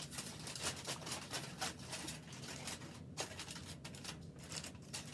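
Aluminium foil crinkling and crackling as it is handled and pressed over a pan, a dense run of small crackles with a brief lull about three seconds in.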